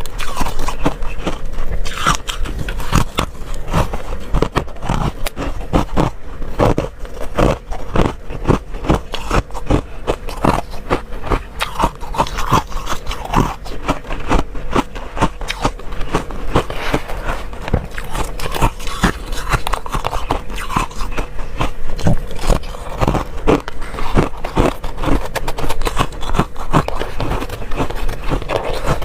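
Freezer frost being scraped up and bitten, then crunched and chewed close to the microphone: a continuous, irregular run of crisp crunches and scraping.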